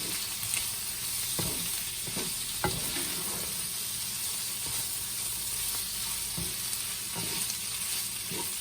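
Seasoned chicken pieces sizzling in a frying pan while being stirred, with a steady hiss and a few short scrapes of the utensil against the pan.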